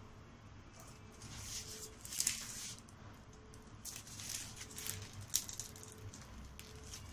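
Handling noise: a few short rustling, scraping sounds about a second and a half in and again around four to five seconds, with a couple of light knocks, as the cake on its board is turned.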